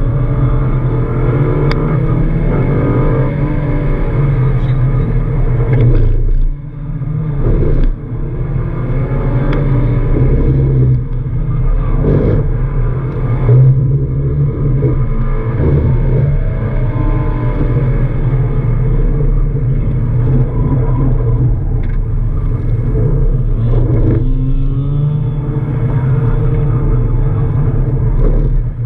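Subaru Impreza GD WRX's turbocharged flat-four engine heard from inside the cabin, driven hard with the revs rising and falling again and again, and two brief drops in the engine note about six and a half and eight seconds in.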